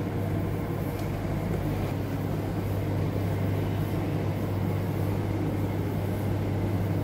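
LG clothes dryer running with its cabinet panel off, its drum motor turning with a steady low hum and an even rumble; it is running normally again on a newly replaced capacitor.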